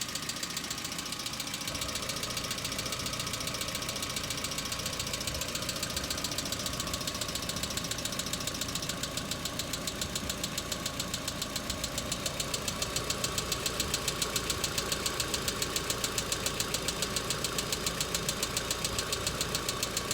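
Hyundai Accent petrol engine idling cold, with a fast, even ticking from its hydraulic lifters (lash adjusters), which becomes more pronounced about halfway through. The ticking is lifter knock on a cold start, before the engine has warmed up.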